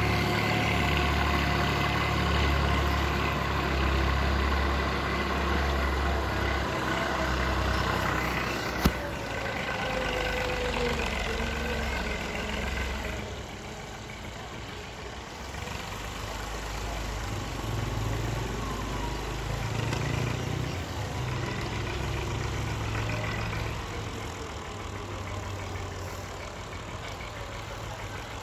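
Excavator's diesel engine running under load, with a whine that slowly falls in pitch over the first ten seconds and one sharp knock about nine seconds in. After about thirteen seconds the engine settles quieter, near idle.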